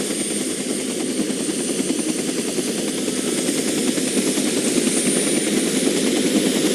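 Helicopter in flight: steady rotor and engine noise with a fast, even beat.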